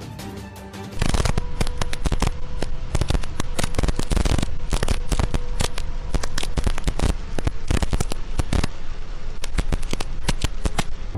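Heavy rain pelting a moving vehicle's windshield and roof, picked up by a dashcam: a dense, irregular crackle of drop impacts starting about a second in. The tail of a music track plays before it.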